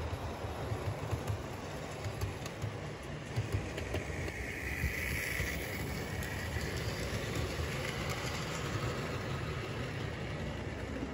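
00 gauge model trains running on track: a steady low rumble of wheels and motors with irregular clicking over the rail joints. About five seconds in, a higher motor whine swells as a small tank locomotive passes close.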